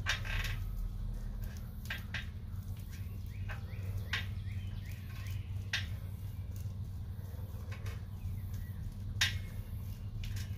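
Pull-ups being done on a bar: a short, sharp sound with each rep, about every two seconds, over a steady low hum.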